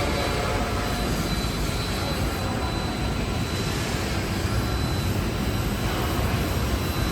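Industrial metalized-film washing line running: a steady mechanical noise with a faint, steady high whine.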